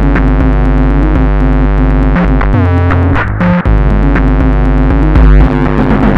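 Synthesizer music: sustained keyboard-like chords over a deep bass line, the chords changing every second or so.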